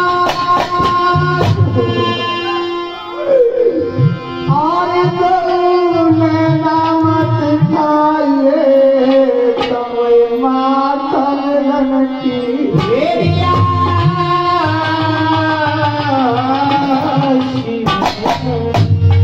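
Live North Indian folk devotional music: a sustained melody with sliding notes over hand-drum accompaniment that drops in and out.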